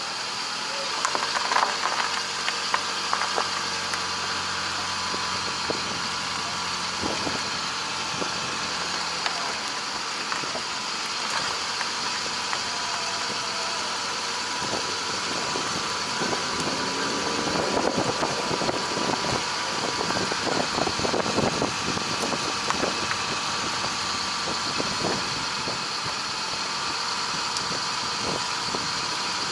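Car driving slowly over rough, patched asphalt, picked up by a camera mic mounted low beside the front wheel: engine running with steady tyre and road noise and scattered crackles of grit under the tyre, busiest in the middle stretch.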